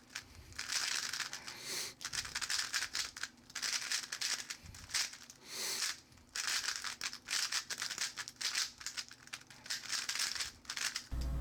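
A 3x3 speedcube being turned very fast: dense runs of plastic clicking and clacking with short pauses between them, as when running through PLL algorithms in a time attack.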